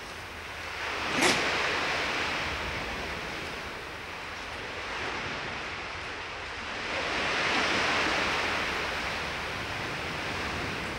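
Surf washing in and out: a steady rush that swells and ebbs twice, with a short sharp knock about a second in.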